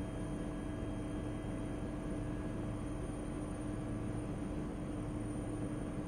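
Steady drone of an aircraft in flight heard from inside the cabin: a constant low hum with a few held tones over even noise.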